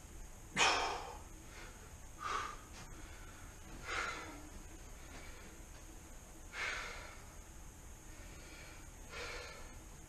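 A man breathing hard after a set of kettlebell snatches: heavy, breathy exhales about every two seconds, the first and loudest about half a second in.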